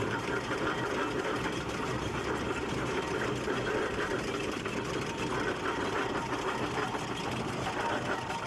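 Aveling and Porter steam road roller's engine running steadily, its motion giving a rapid, even mechanical clatter.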